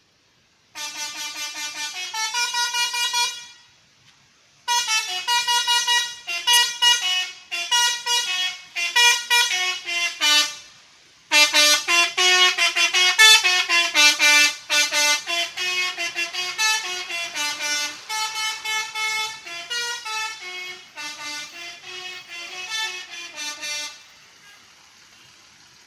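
A bus's multi-trumpet telolet horn playing a tune note by note, in three phrases with short breaks about four and eleven seconds in.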